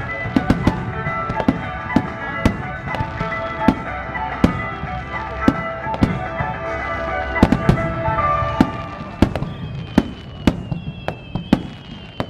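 Aerial fireworks shells bursting in quick succession, sharp bangs several a second, over festival music that fades out about two-thirds of the way through. A few thin falling tones sound near the end.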